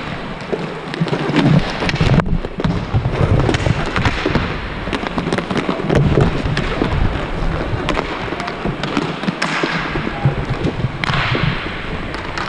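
Inline hockey play: a steady low rumble of skating on the rink with many quick clacks and thuds of sticks and puck throughout.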